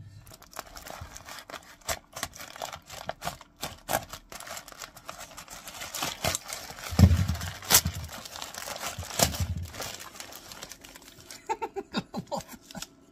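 Plastic courier mailer bag being torn open and crinkled by hand: dense rustling and crackling of the plastic, with a few dull thumps on the workbench about halfway through.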